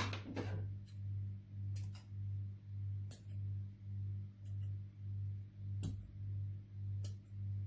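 Slime being played with, giving scattered sharp clicks and pops, with a quick cluster right at the start. Under them runs a low pulsing hum, about two pulses a second.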